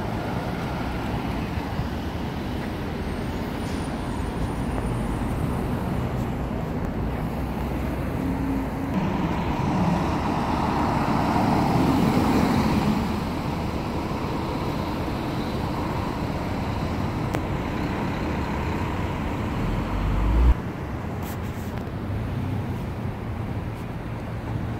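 Cars passing on a city street, with one swelling louder as it goes by about halfway through. A low thump about twenty seconds in, after which the sound is quieter.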